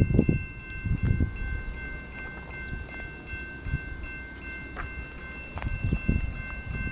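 Railroad grade-crossing bell ringing steadily in a fast, even repeat, with gusts of wind buffeting the microphone.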